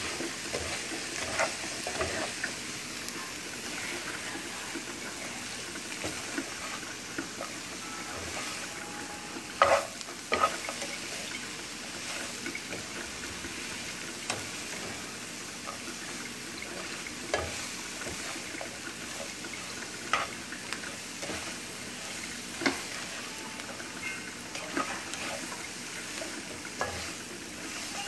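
Diced potatoes and onions sizzling in oil in a frying pan while being stirred with a spatula: a steady frying hiss with intermittent scrapes and knocks of the spatula against the pan, the loudest about ten seconds in.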